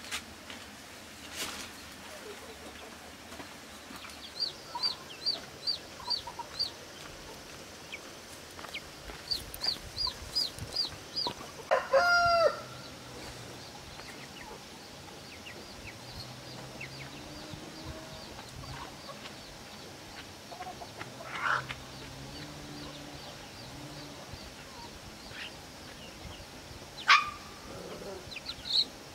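Chickens: a rooster crows once, loudly, about twelve seconds in, amid two quick runs of high peeping calls before it and low clucking after it.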